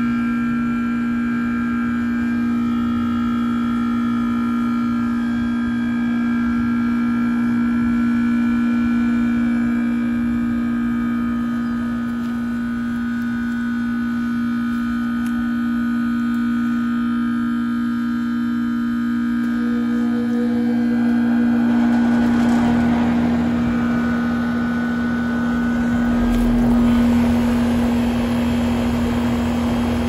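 A 2008 Trane XB13 3-ton heat pump outdoor unit in its defrost cycle, its reciprocating compressor giving a steady, loud hum. About two-thirds of the way in, a broad rushing hiss builds up over the hum and stays.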